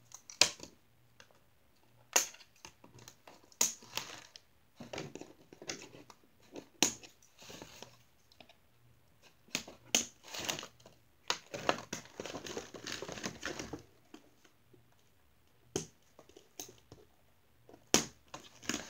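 Plastic and cardboard doll packaging being handled and pulled apart: crinkling and crackling in irregular bursts, with sharp clicks and quiet gaps between.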